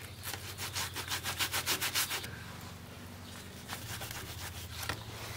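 Cloth rag rubbed briskly back and forth over a small anodized metal heater-box flap plate, wiping off old foam residue. Quick, regular strokes for about two seconds, then slower, quieter wiping.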